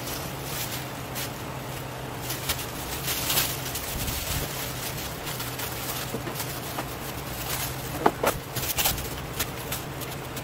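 Thin plastic bags rustling and crinkling in bursts as handfuls of thawed squid rings are packed into them, over a steady low hum.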